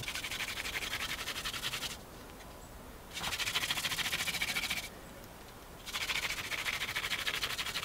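Hand-drill friction fire: a wooden spindle spun between the palms grinds into a notched wooden hearth board under heavy downward pressure, making a fast, rhythmic scratching. It comes in three bouts broken by two pauses of about a second each, when the hands go back to the top of the spindle. The spindle tip is grinding out hot wood dust to form an ember.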